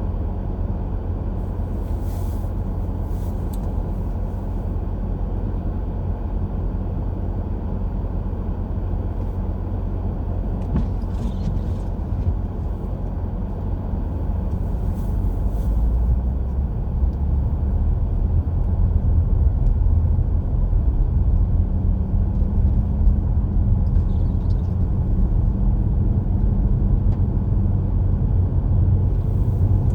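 Steady low road and engine rumble of a car being driven on a snowy road, heard from inside the cabin, growing louder about halfway through.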